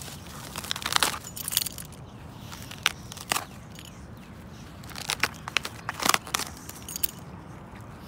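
A dog chewing and tearing at a splintered dry branch: irregular bursts of sharp cracks and crunches, loudest about a second in and again around six seconds in.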